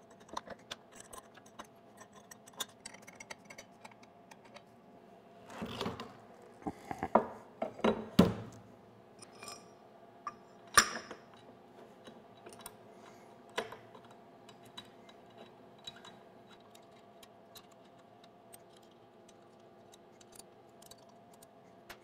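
Clinks, clicks and knocks of metal parts being handled as an aluminium CNC router spindle mount is fitted to its spacer with pins and bolts. There is a cluster of louder knocks about six to eight seconds in, then scattered single clicks.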